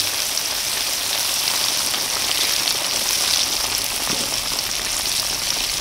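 Flour-battered pork cutlet deep-frying in hot oil in a wok: a steady crackling sizzle.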